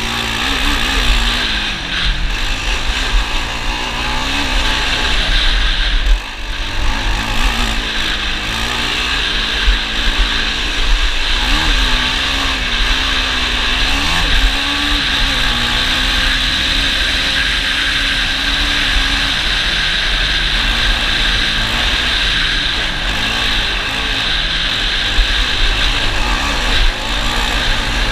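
ATV engine running under way, its pitch rising and falling with the throttle over a heavy low rumble and steady hiss.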